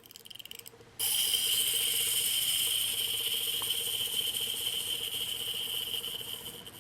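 Clockwork motor of a Tomy wind-up Thomas toy engine whirring with a fine rapid rattle. It starts about a second in and slowly fades as the spring runs down.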